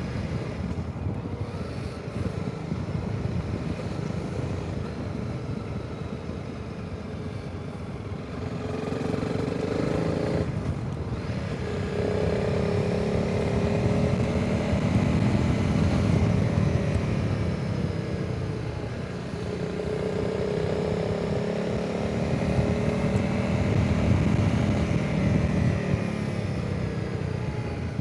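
Honda CRF300 Rally's single-cylinder engine running on the move, its note rising and falling with the throttle, with a brief break about ten seconds in. Wind rushes over the microphone throughout.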